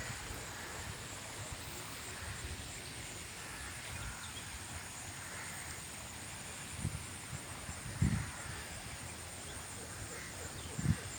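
Forest ambience: a steady high, pulsing trill of insects over a soft background rush, broken by a few dull low thumps about two-thirds of the way through and near the end.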